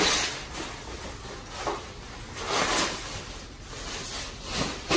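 White foam packing wrap rustling in several swells as it is pulled off and handled around a plastic front splitter.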